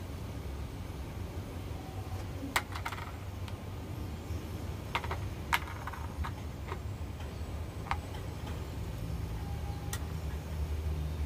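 Scattered sharp clicks and taps, about eight of them, as hard pangie (kepayang) seed shells are handled, dropped into a plastic tub and a seed is set into a metal cracking tool, over a steady low hum.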